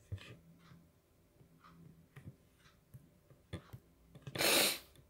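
Faint scattered taps and clicks of a stylus on a tablet screen, with a short, loud burst of hiss-like noise about four and a half seconds in.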